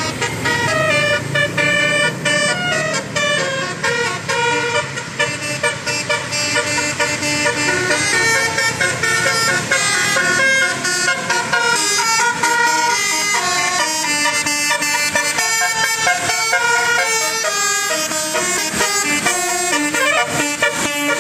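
Bus 'telolet' musical horn: a set of air-horn trumpets playing a fast melody of stepped notes, several tones at once, without a break.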